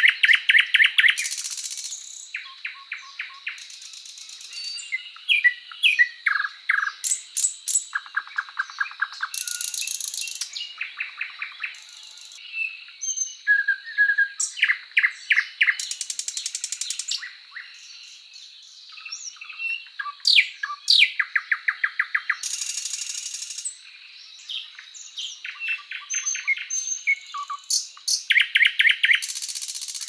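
Birds chirping and singing, several different calls overlapping: rapid trills of evenly spaced notes, short whistles and buzzy bursts, all high-pitched, over a faint steady high tone.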